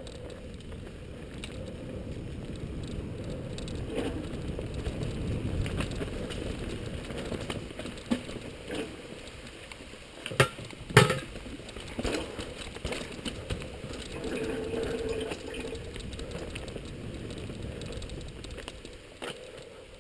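Mountain bike riding down a dirt and leaf-covered singletrack: a steady rumble and rattle of tyres and frame over the ground, with several sharp knocks about halfway through and a brief hum a few seconds later.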